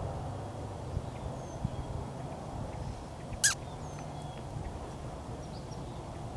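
Open-field ambience: a low steady rumble with faint, high bird chirps, and one short, sharp, high-pitched squeak about three and a half seconds in.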